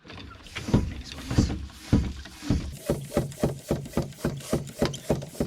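A hand track pump being stroked to inflate a tubeless mountain-bike tyre with its valve core out, to seat the bead on the rim. The strokes are slow at first, then quicken to about three a second from about three seconds in.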